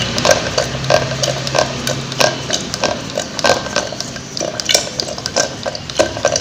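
A churning stick (mathu) twirled by hand in a steel pot of soured milk cream and water, swishing through the liquid and knocking irregularly against the pot's sides a few times a second. The butter is coming together in the churn.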